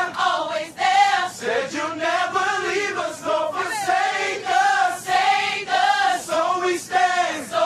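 A gospel choir of men and women singing together, with short sung phrases repeated in a steady rhythm.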